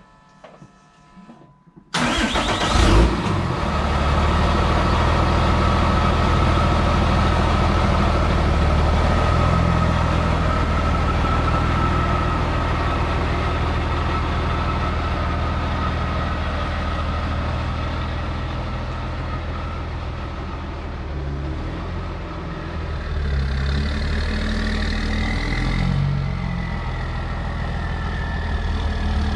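Cummins turbo-diesel engine of a 2008 Ram 3500 starting about two seconds in, then idling steadily with a thin whine over the engine note. Near the end the sound changes and a rising tone comes in.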